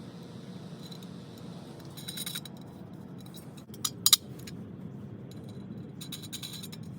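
Light metallic clinks and scrapes of tools and hardware on a perforated stainless steel utensil caddy as a burr is worked off a freshly drilled bolt hole: a cluster about two seconds in, a sharper clink about four seconds in, and another cluster near the end, over a steady low hum.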